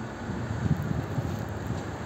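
A car driving past on the street, its low tyre-and-engine rumble mixed with wind buffeting the microphone.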